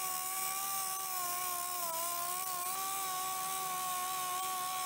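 Hyphone HY1949 pneumatic vertical multi-function tool with a cut-off wheel, cutting through a metal rod: a steady high whine over a hiss. The pitch dips briefly about two seconds in as the wheel bites.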